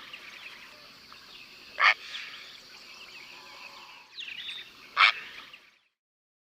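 Heron calling twice, short loud calls about three seconds apart, over a steady background of small birds chirping. The sound cuts off about a second before the end.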